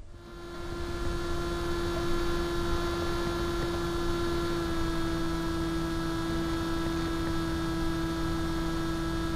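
Electric motor and propeller of a foam FPV plane in flight, heard from the camera on board: a steady, even-pitched whine over a steady hiss of airflow. It fades in over the first second, and the pitch steps slightly lower about halfway through.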